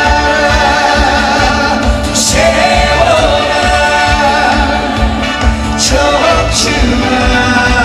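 Live trot song: long, wavering sung notes over a band backing with a steady low beat and a few cymbal crashes.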